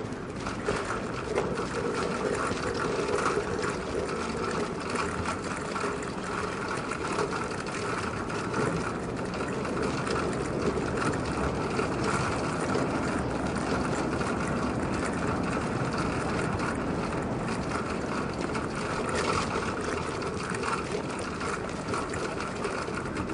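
Bike-share bicycle rolling along a city street over asphalt and cobblestones: steady tyre and road noise with a light, continuous rattle from the bike and a steady hum.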